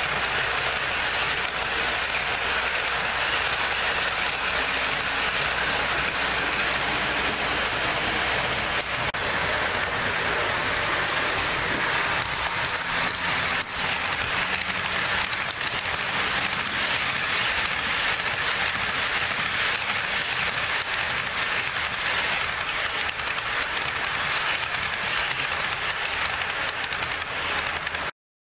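Empty HO-scale model coal hoppers rolling past on the track: a steady rattling hiss of small wheels on rails that cuts off abruptly near the end.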